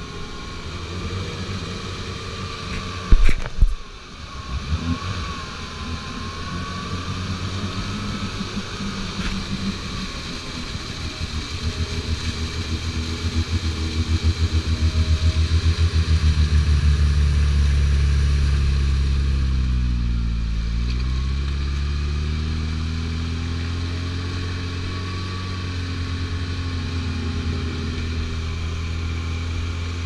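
UAZ off-roader's engine revving hard under load while stuck in a deep muddy rut, wheels spinning and flinging mud. The revs build through the middle, dip briefly about two-thirds through and climb again. A couple of sharp knocks about three seconds in.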